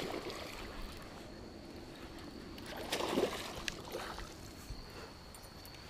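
Faint splashing of pond water as a hooked largemouth bass is landed, with one louder moment about three seconds in.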